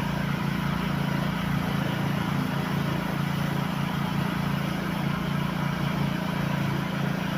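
A car engine idling steadily, a constant low hum.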